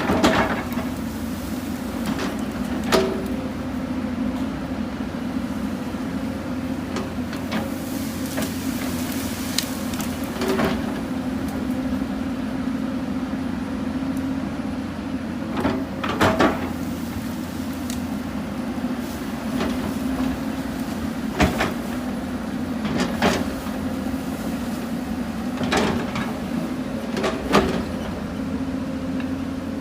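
Hyundai 220 excavator's diesel engine running steadily under load while it digs, with irregular sharp clanks and knocks, about a dozen, as the bucket and boom strike rock and soil.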